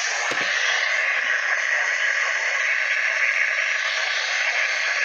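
Steady radio static: a loud, even hiss with no voice or tone on the channel.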